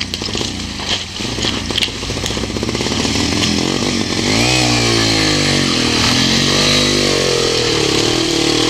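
Small motorcycle engine, running rough at first, then revving up and down from about four seconds in and held at high revs near the end: the engine being revved to clear itself after going into the water.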